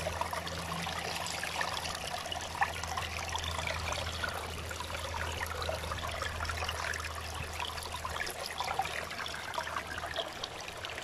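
Water trickling with light, irregular splashing as a hand sifts through a mesh net of small live fish in shallow stream water, over a steady low hum.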